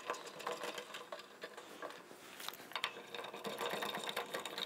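Plastic quick-connect fitting being screwed by hand onto the stainless steel coupler of a UV water steriliser's port: faint, irregular clicks and scrapes of plastic on metal threads.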